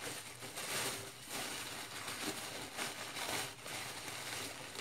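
Rustling and crinkling of packaging being handled as beauty samples are taken out of the box's bag, in uneven bursts.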